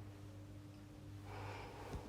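Vintage Westinghouse ceiling fan running on its lowest speed, its motor giving a faint, steady hum. A soft breathy noise comes in about a second and a half in.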